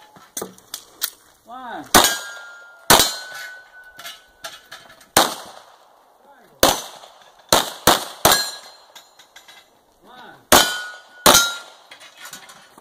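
Handgun shots fired at steel targets, about nine spread unevenly with some in quick pairs and triplets, several followed by a brief ringing clang of steel being hit. A short shouted call comes before the first shots.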